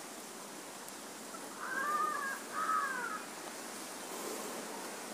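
A crow cawing twice: two arched calls in quick succession near the middle, over a faint steady hiss.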